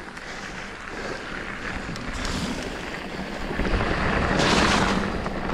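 Mountain bike rolling fast down a gravel track, with tyres on the loose stones and wind rushing over the handlebar camera's microphone. The noise grows louder about four seconds in.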